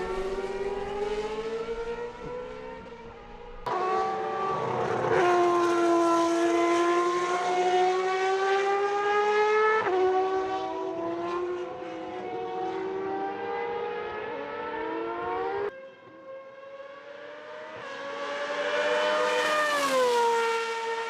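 Superleague Formula Panoz DP09B's 4.2-litre V12 racing engine at high revs, pitch climbing under acceleration and dropping sharply at each upshift of the six-speed semi-automatic gearbox. The sound changes abruptly twice, about four and sixteen seconds in, and the pitch falls near the end.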